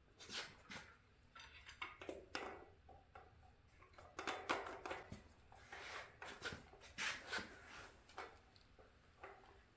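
Irregular metal clicks and clunks as a cam bearing installer tool's shaft and cones are handled and slid into an engine block's cam tunnel, the loudest knocks about halfway through.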